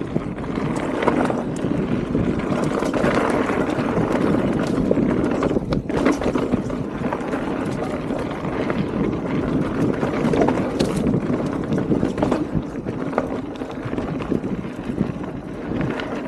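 Mountain bike riding down a wet dirt trail: a continuous rumble of tyres and wind buffeting the microphone, broken by scattered sharp knocks and rattles as the bike hits bumps.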